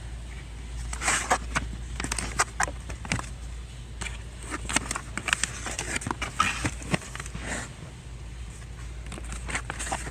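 Irregular clatter of knocks and clicks, like goods and a shopping cart being handled in a wholesale store, over a steady low hum.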